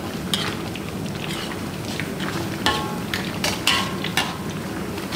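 Stirring in a cooking pot: a utensil clinks and scrapes against the pot over a steady hiss of cooking, with a short ringing metal note about halfway through and another a second later.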